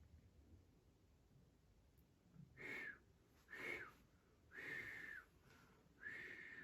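A man whistling four short notes about a second apart, each holding one pitch and dropping slightly at the end: a call for someone, the way one whistles for a dog.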